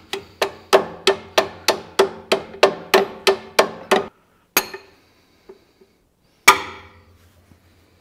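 Hammer tapping the steel hood-latch rod of a John Deere 3520 to drive it sideways through the latches: a quick run of about a dozen ringing metal taps, roughly three a second. Then comes a single tap, and a few seconds in, one harder blow, the loudest of all.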